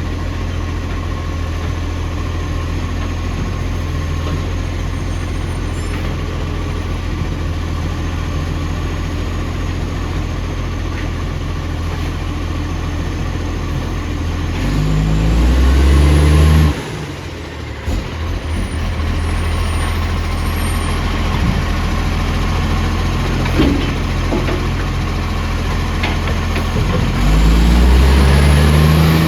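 Heavy vehicle's engine idling loudly with an exhaust leak. It is revved up twice, about halfway through and again near the end, and falls back abruptly after the first rev.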